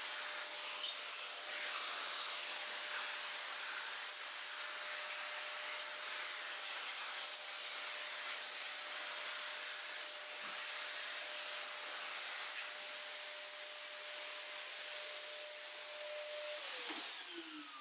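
Vacuum cleaner running steadily with a constant whine, sucking up metal shavings. Near the end it is switched off and the whine drops in pitch as the motor spins down.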